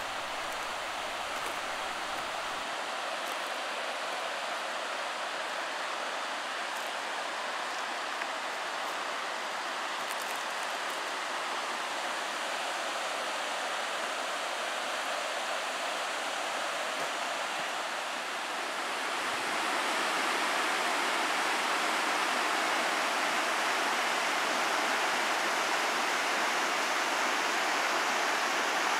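Waterfall cascading down a rock face: a steady rush of water that grows louder about two-thirds of the way through.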